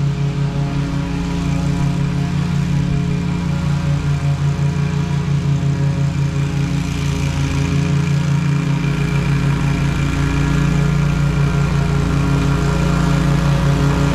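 Engine of a Toro GrandStand HDM stand-on mower running steadily with the blades cutting grass, growing louder as the mower drives toward the microphone.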